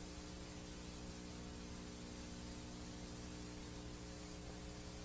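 Faint, steady hiss of a VHS tape playing a blank stretch, with a low hum of several steady tones underneath.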